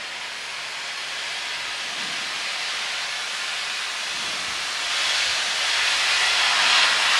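Lilium Jet Phoenix 2 demonstrator's many electric ducted fans hovering as it descends to a vertical landing: a steady rushing hiss that grows louder about five seconds in.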